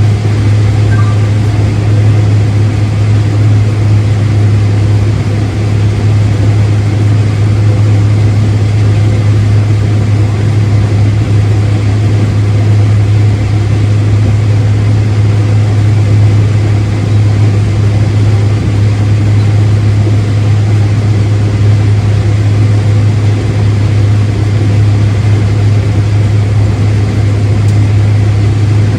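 Farm machinery engine running steadily under harvest work, a loud, unchanging low hum with no break.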